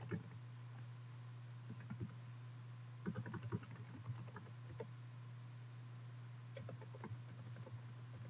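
Faint, irregular computer keyboard keystrokes as text is typed, in scattered clusters, over a steady low electrical hum.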